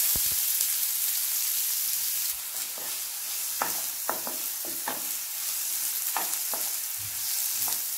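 Chopped onions sizzling in hot oil with cumin seeds in a nonstick frying pan, the sizzle loudest in the first two seconds and then settling. From about two and a half seconds in, a wooden spatula stirs them, with short scrapes and knocks against the pan.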